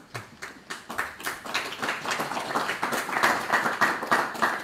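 Audience applauding: a few scattered claps that thicken into steady applause after about a second and are loudest near the end.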